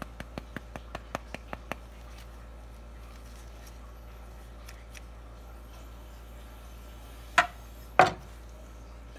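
Chef's knife cutting along the rib bones of a dry-aged bone-in rib roast, the blade clicking against bone about five times a second for the first two seconds. Then two loud knocks on the cutting board about half a second apart near the end.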